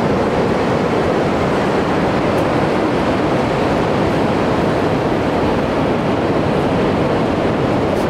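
Pacific Ocean surf breaking on a sandy beach: a steady, continuous roar of waves.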